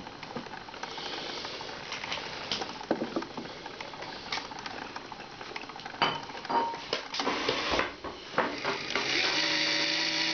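LEGO painting machine running: a steady hiss with irregular clicks and knocks from its plastic gears and brush arm, busiest in the second half, and a steady electric motor hum setting in near the end.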